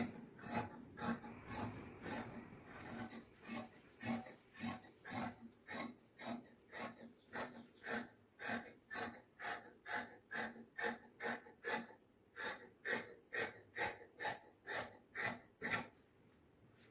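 Large tailor's shears cutting through white kurti fabric, the blades closing in an even run of snips about twice a second, stopping near the end.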